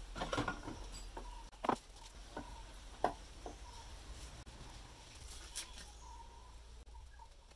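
A few sharp metallic knocks and clinks, the loudest about two and three seconds in, as a motorcycle engine's alternator cover with its stator is worked loose from the crankcase and lifted off.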